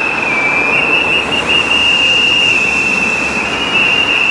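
Protest whistles blown together by strikers, making one shrill, unbroken high tone that wavers slightly in pitch over a wash of street noise.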